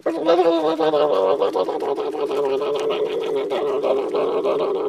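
A person's voice making a long buzzing hum at one held pitch, pulsing rapidly like a motor, as a silly dance noise.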